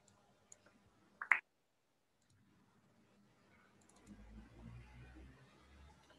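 A sharp double click about a second in, over faint room hum, then a brief dead silence and a faint low rumble near the end.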